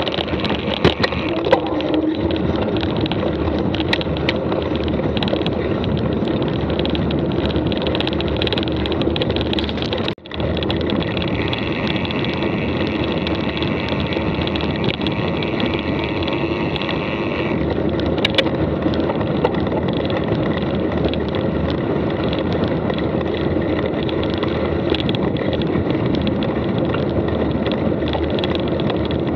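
Mountain bike being ridden: a steady rolling noise with frequent clicks and rattles from the bike, broken by a brief drop about ten seconds in.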